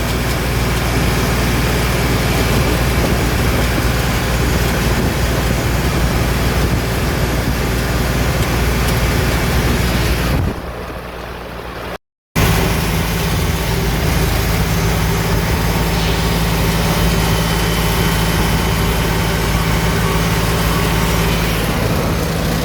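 Tractor engine running steadily with a low, even hum. About ten seconds in it drops to a quieter stretch, cuts out briefly, then comes back at the same steady level.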